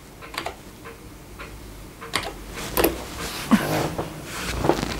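A handful of separate, irregularly spaced key clicks from the IBM 5140 PC Convertible's keyboard as a DOS 'dir/w' command is typed and entered. Near the end a low steady whirr starts up as the machine's floppy drive begins reading the directory.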